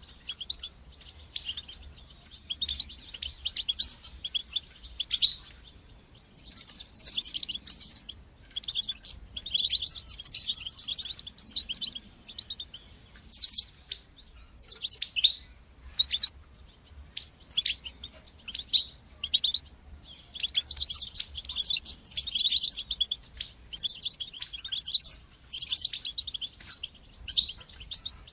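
European goldfinch singing: repeated bursts of fast, high twittering phrases, each a second or two long, with short pauses between them.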